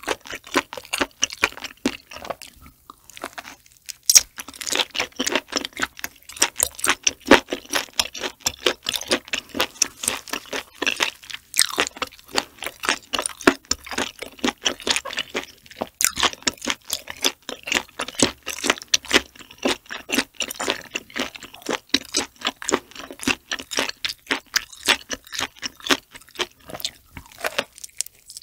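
Close-miked chewing of boiled octopus tentacle: a dense run of quick mouth clicks and smacks, with a short break about three seconds in and another just before the end.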